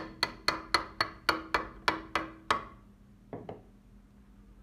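A hammer tapping on the steel slide of a Beretta M1935 pistol, about ten quick blows at roughly four a second with a faint metallic ring, then two lighter knocks about a second later.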